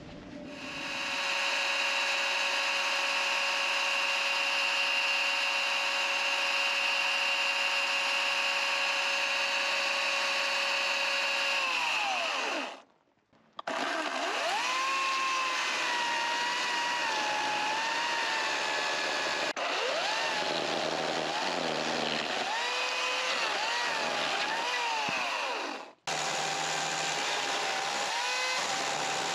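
Kobalt 80V cordless electric chainsaw running. For about twelve seconds it spins its chain off-load at a steady high whine, then winds down and stops. It starts again and cuts into a block of wood, the whine dropping and wavering under load, with a short stop and restart near the end.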